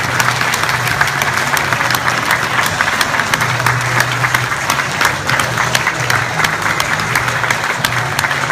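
Audience applauding steadily, a dense mass of many hands clapping that does not let up.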